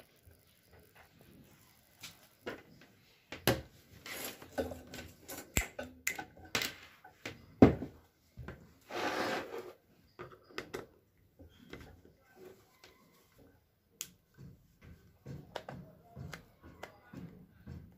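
Irregular plastic clicks, taps and scrapes as an electric blanket's hand controller is handled and a screwdriver works at its plastic casing to open it.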